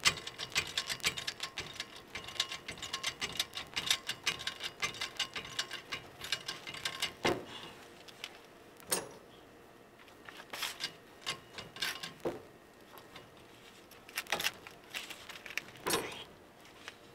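Hand socket ratchet clicking rapidly for about seven seconds, then a few separate metallic clicks and knocks from hand tools.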